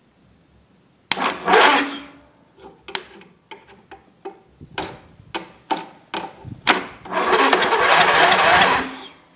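Electric starter of a riding lawn tractor's engine cranking it over in two bursts, one of about a second and a longer one of about two seconds, with sharp clicks and crackles between as the solenoid is bridged with pliers. The engine turns over but does not fire.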